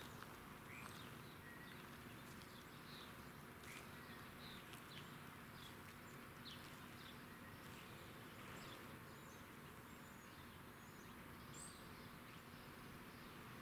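Faint background ambience with scattered short bird chirps, a few a second; no siren is sounding.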